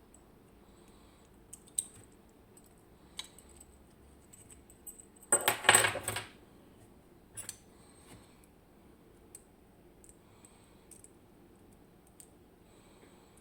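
Small metal parts of a Miwa EC lock being handled during disassembly: a few sharp isolated clicks, and about five seconds in a brief burst of rattling metallic clinks like small parts dropping onto a hard surface.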